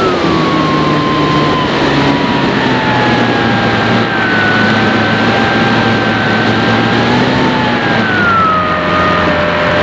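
Motor and propeller of a radio-controlled model Cessna in flight, heard from a camera on the plane, with steady air rush over it. The motor's pitch drops right at the start and again about eight seconds in.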